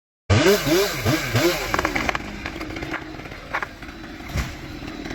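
A small engine revved up and down several times in quick succession, then running on more steadily, with a few sharp knocks.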